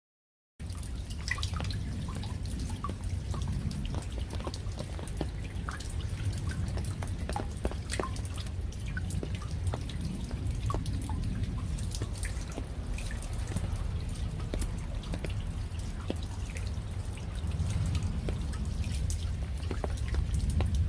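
Raindrops falling as scattered individual drips and taps over a steady low rumble. It starts abruptly just under a second in.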